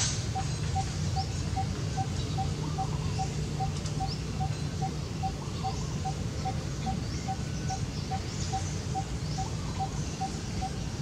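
Steady low background rumble with an even, rapid ticking of short pips at one pitch, several a second, and faint high chirps like small birds.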